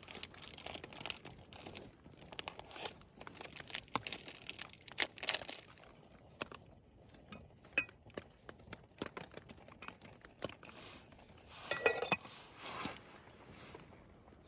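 A utensil clinking and scraping against a stainless steel billy can, with rustling between the clicks. About twelve seconds in there is a louder metallic clatter with a brief ring.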